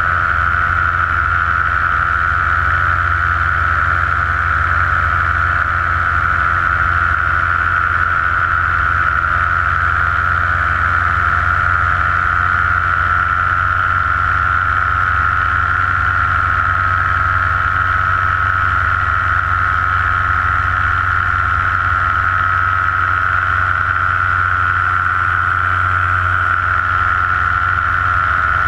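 Paramotor engine and propeller running steadily in flight at a constant throttle: an unbroken drone with a high, steady whine over a low hum.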